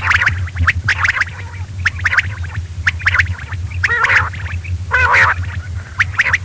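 Quail calling over and over in quick chattering notes, with sharp clicks between the calls. A steady low hum runs underneath.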